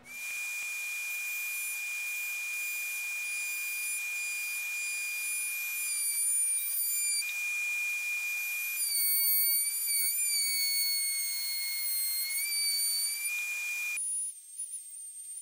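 Table-mounted router running at speed, heard as a thin, steady high-pitched whine. The pitch wavers and sags slightly while a wooden strip is fed past the bit. Near the end it switches to a higher, fainter tone.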